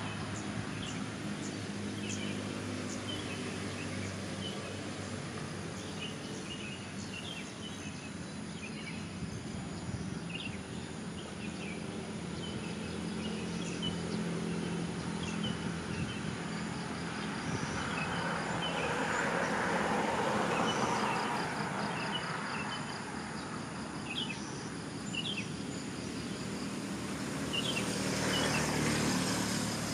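Outdoor ambience of small birds chirping over a steady low hum of distant traffic. A vehicle swells past about two-thirds of the way through, and a high, fast insect trill joins in the second half.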